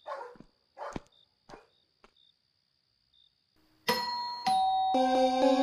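A dog barks a few times, then near the end an electronic doorbell rings: two chime notes about half a second apart, followed by several tones held together.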